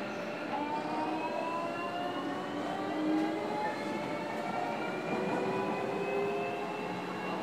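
JR Kyushu 305 series electric train heard from inside motor car MoHa 305-106: the traction motors' whine climbs slowly in pitch as the train accelerates, over steady running noise.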